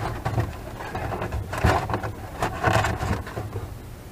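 Work-handling noise: a few short scrapes and knocks, spaced irregularly, from hands and tools against the wooden deck frame.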